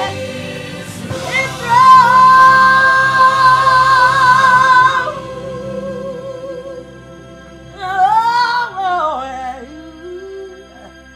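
A woman singing a gospel song, holding one long note with vibrato, then singing a shorter phrase near the end.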